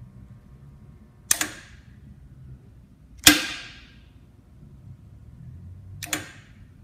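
Maxon Series 5000 safety shutoff valve cycled with its motor operator unhooked: three sharp clicks, the loudest about halfway through and the last one doubled, among them the snap of the solenoid pulling in. No motor hum follows, the sign that the motor operator has failed.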